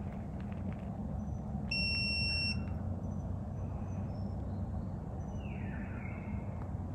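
A single high electronic beep lasting about a second, around two seconds in, over a steady low background rumble.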